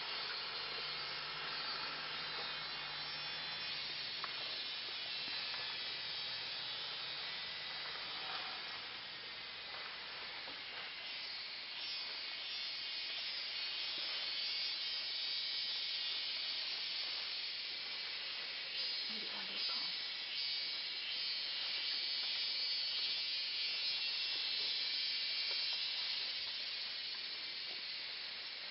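Steady high-pitched hiss of a tropical forest insect chorus, with a faint low hum in the first few seconds.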